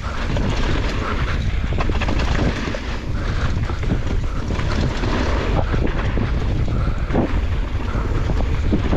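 Wind buffeting the action camera's microphone while descending on a mountain bike, with the tyres rolling over the dirt trail and the bike knocking and rattling over bumps.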